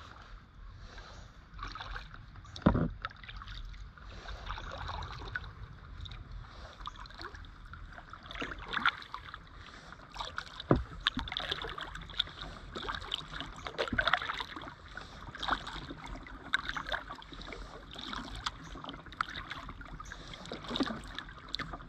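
Kayak paddle strokes: the blades swishing and splashing through calm river water, with dripping between strokes. A few sharp knocks, the loudest about three and eleven seconds in.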